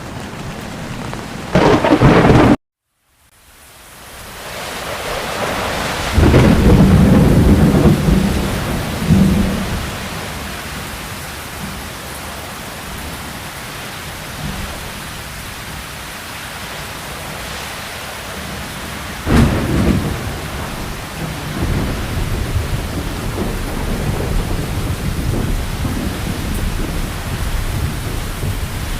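Heavy rain falling steadily, with thunder: a loud clap about two seconds in, after which the sound cuts out suddenly for a moment and fades back in, then a long low rumble of thunder and another sharp crack later on.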